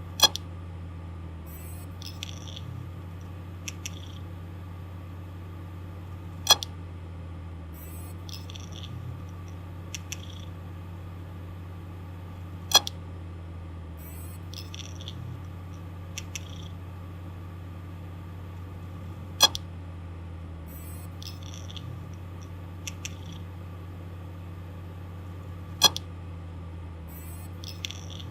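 Failing hard disk drive spinning with a steady low hum, broken by a sharp, loud click about every six and a half seconds (five in all) and fainter scratchy ticks in between. This is the head clicking and scratching of a malfunctioning drive.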